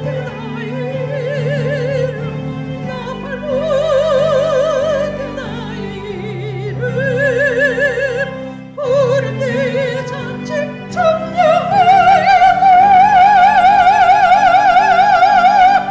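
Operatic soprano singing the final phrase of a hymn with wide vibrato over an instrumental accompaniment, then holding one long high note with vibrato for the last four seconds.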